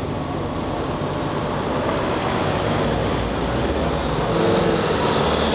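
Cars and vans driving past close by, engines running; the sound grows louder about four seconds in as a van approaches.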